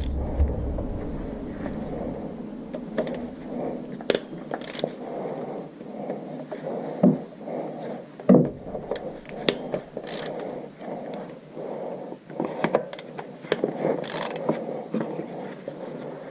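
Irregular clicks, knocks and short scrapes of hand tools and metal parts being worked on by hand, as in turning a ratchet and handling parts under a car. A low rumble fades out in the first second or two.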